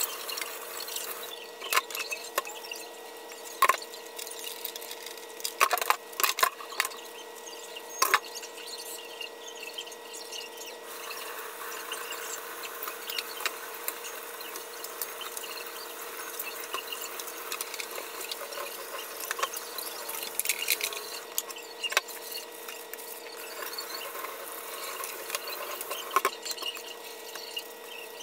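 Dishes being hand-washed at a kitchen sink: plastic containers and a bowl scrubbed and rubbed under the tap, with sharp knocks and clinks as items are set down and handled, over a steady hum.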